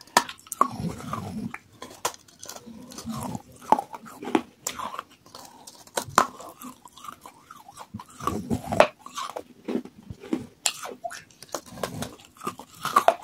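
Pieces of baked terracotta clay pot bitten and chewed, a run of sharp, irregular crunches between the teeth.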